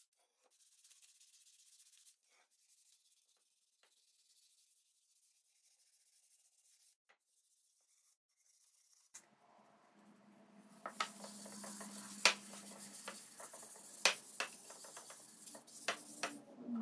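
Hand sanding of a wooden board with sandpaper, faint scratchy strokes. About nine seconds in, a louder steady rubbing starts as a cloth wipes finish onto the wood, with a few sharp knocks along the way.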